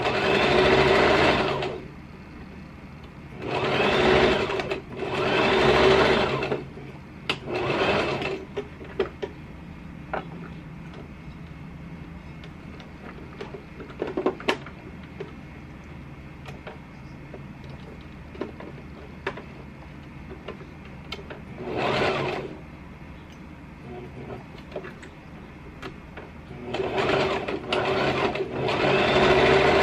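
Electric home sewing machine stitching a seam through pinned layers of fabric in short runs of one to two seconds, stopping and starting about six times. Light clicks and taps come in the pauses between runs.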